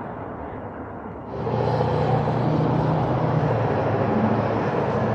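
Steady road and wind noise from riding an electric unicycle along a city street, stepping up and growing louder about a second in, with a steady low hum underneath.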